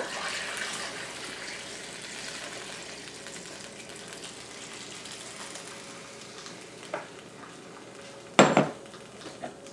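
Tap water pouring from a glass half-gallon jar into a turkey roaster full of roasted beef bones, a steady splashing that slowly fades. Near the end there is a single sharp knock.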